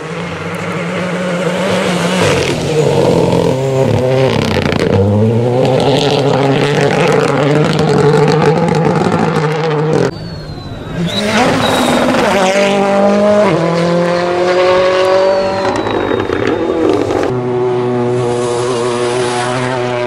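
Rally car engines at full throttle on a gravel stage, climbing through the gears with sharp drops in pitch at each shift. A Renault Clio rally car is heard first. About halfway through the sound cuts to a second car approaching and climbing through its gears.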